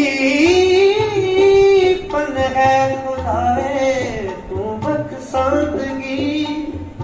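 Sikh kirtan: a bowed sarangi and a singing voice carry a slow melody that glides and bends between notes, over tabla strokes.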